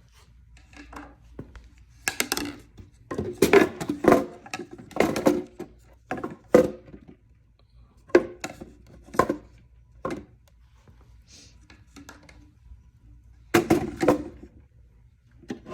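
Hollow HDPE plastic mortar tubes knocking and clattering as they are handled and set into a fireworks mortar rack, in irregular bursts of knocks with pauses between.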